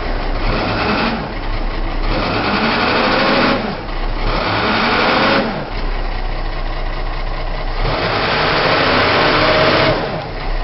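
Case backhoe's diesel engine, just cold-started, revved up three or four times, each time rising in pitch and then falling back to a rough idle.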